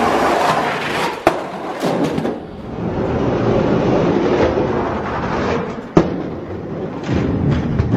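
Die-cast toy monster trucks rolling fast down a plastic orange racing track, a steady rolling noise with a sharp clack about a second in and another near six seconds.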